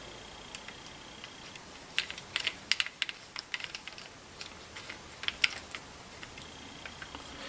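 Light, irregular clicks and taps of a small screwdriver working a small Phillips screw into a rifle's trigger assembly, with a cluster of sharper clicks in the middle.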